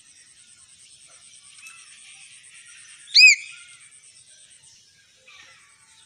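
Common hill myna giving one loud, short whistled call about three seconds in, over a faint steady high buzz and soft scattered chirps.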